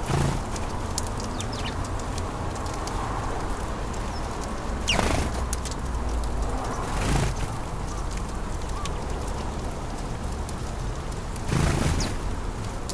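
Sparrows chirping: a few loud short calls near the start and about five, seven and twelve seconds in, with faint high chirps in between, over a steady low background rumble.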